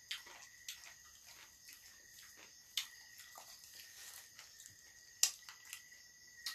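Small clicks and smacks of people eating with their hands, with two sharper clicks at about three and five seconds in. Behind them, a steady insect chorus holds a thin, high note.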